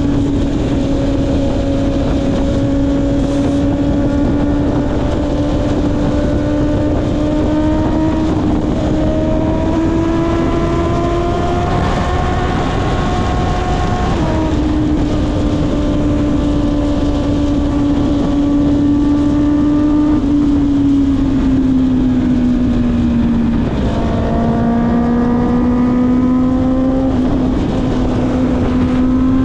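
Honda CB650R's inline-four engine through an Akrapovic exhaust, running at steady cruising revs over a rush of wind and road noise. The revs climb slowly, drop quickly about halfway through at a gear change, ease down a little later on, then pick up again near the end.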